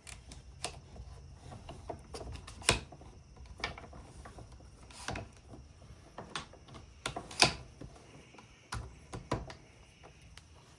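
Irregular clicks and knocks of hardware being worked as a trolling motor is raised on its mount, with two louder knocks, one near a third of the way in and one about two thirds through.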